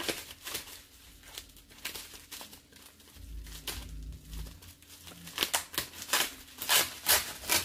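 Plastic bubble wrap crinkling as gloved hands pull it open, in a run of short crackles that grow louder in the last couple of seconds.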